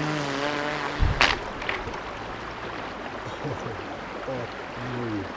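RC airboat's electric motor and air propeller running with a wavering whine, cut off about a second in by a sudden loud crash as the boat flips. After that, the shallow stream's flowing water, with a few short falling tones near the end.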